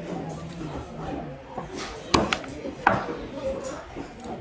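Knife chopping through a large trevally on a cutting block: two sharp knocks about two seconds in, under a second apart, with lighter taps between, over background voices.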